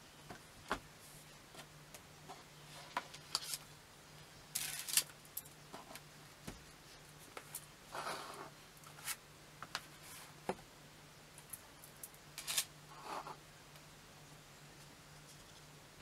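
Books and a notebook being handled and set down on a wooden desk: scattered light taps and knocks, with a few short rustles and slides of covers and paper, over a faint steady hum.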